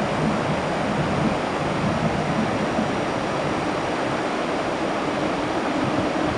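Steady rushing wind noise, with no engine sound.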